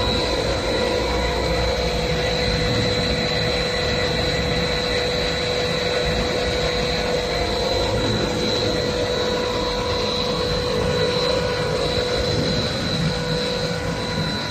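HDPE blown film extrusion machine running: a steady machine drone with a steady mid-pitched tone and a high whine held throughout, no change in pace.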